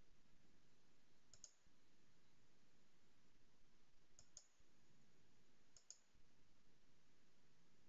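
Near silence: faint room tone with three soft double clicks, a second or more apart.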